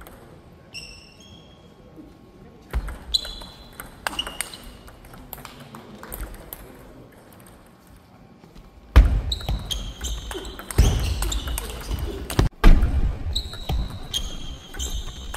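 Table tennis ball clicking off rackets and the table, with short ringing pings in a large hall. A few scattered taps at first, then from about nine seconds in a fast run of louder hits mixed with low thuds.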